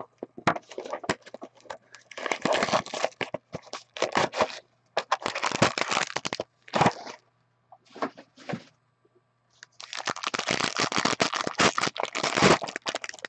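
A trading card box being opened and a foil card pack crinkling and tearing open by hand, a run of sharp crackles and clicks with short pauses. The crinkling is densest and loudest near the end as the pack is torn.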